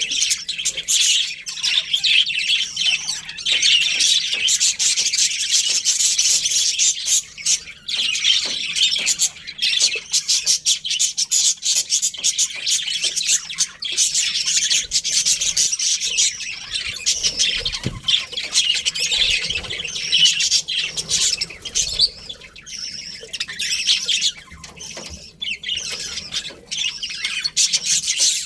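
A colony of budgerigars chirping and chattering continuously, many birds at once in a dense high-pitched twittering with occasional squawks.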